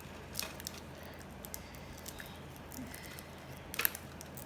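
Snack packaging being handled: scattered light crackles and clicks, with a louder cluster near the end.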